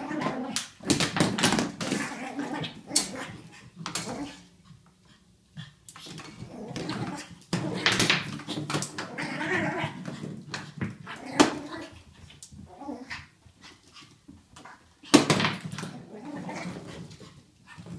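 Pug making dog noises in irregular bursts while wrestling and thrashing a toy on a hardwood floor, with several sharp knocks along the way.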